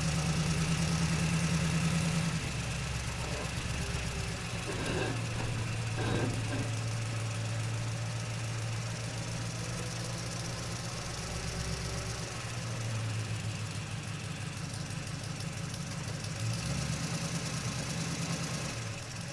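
An engine running at idle, its steady low note stepping to a different pitch a few times, with two brief faint whines about five and six seconds in.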